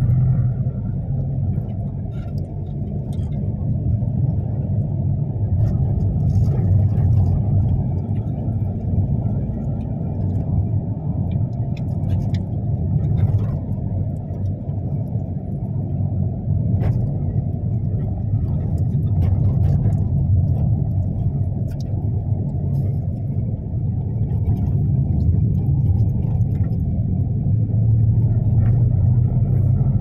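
Steady low rumble of a vehicle's engine and tyres on the road, heard from inside the cabin while driving.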